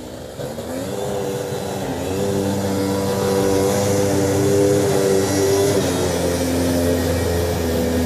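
A John Deere skid steer's diesel engine running hard, powering a MUSKOX bidirectional snowblower attachment as it clears snow. The engine note swells in the first couple of seconds, then holds steady, shifting slightly in pitch past the middle.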